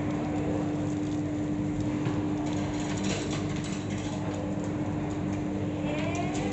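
Steady restaurant background noise: a constant hum under a general din, with faint scattered clicks and distant indistinct voices near the end.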